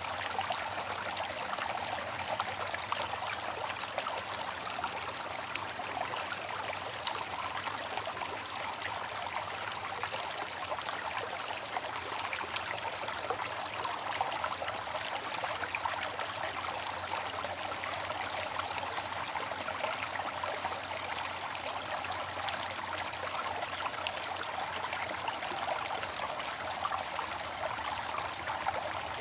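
Water fountain splashing and trickling in a steady, unbroken stream.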